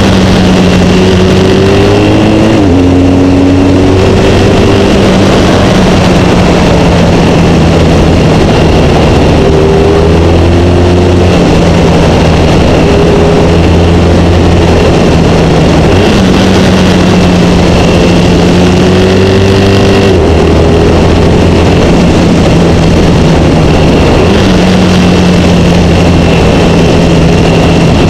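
BMW HP2 Sport's boxer-twin engine pulling steadily on the move, with a constant rush of wind and road noise on an onboard microphone. The engine note jumps up sharply twice in the second half.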